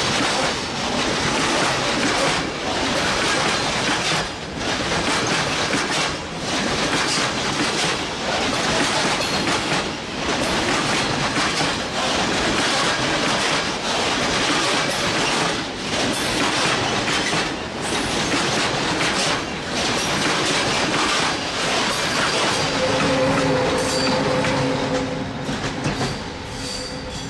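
Heavy train rolling over bad rail joints: a loud, continuous clatter of wheels, with a regular beat as the cars go by. Near the end a steady tone joins in and the noise begins to fade.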